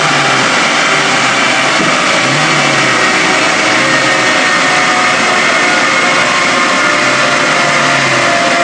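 Ford Escort RS2000 16-valve four-cylinder engine on individual GSX-R motorcycle throttle bodies, running loud and steady on a rolling road, its exhaust heard from behind the car.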